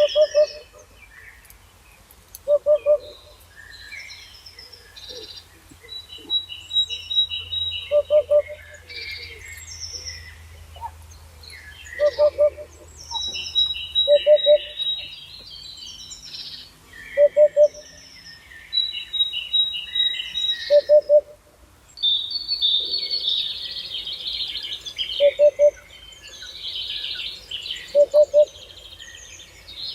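Birds singing: a low call of about three quick notes repeats every two to three seconds and is the loudest sound, over higher chirping and trilled songs from other birds that grow busier in the last third.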